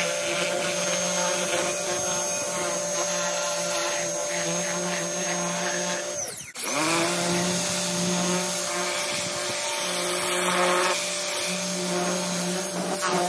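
Pressure washer running steadily with a high whine. It winds down and stops about six seconds in, then starts up again and runs on.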